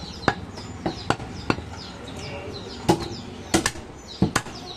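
Butcher's cleaver chopping goat meat on a wooden log chopping block: about ten sharp chops at an uneven pace, several in quick pairs.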